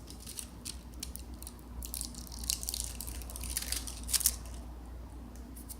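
Foil and plastic backing of a bicycle tube repair patch crinkling as the sticky patch is peeled off by hand: a run of irregular sharp crackles, the loudest about four seconds in.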